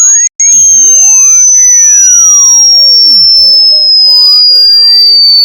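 Hearing-test sine tone, a single high-pitched pure tone gliding slowly and steadily down in pitch as a descending frequency sweep. It is loud, and it breaks off briefly just after the start.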